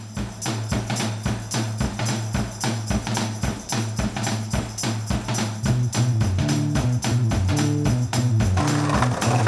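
Music with a fast, steady percussion beat and a stepping bass line, cutting in suddenly out of silence.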